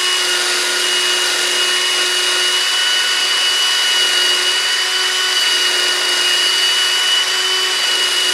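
Cordless drill spinning a wire brush inside a core plug hole of an engine block, scouring out paint and rust. It is a steady high whine over a rasping hiss, running without a break.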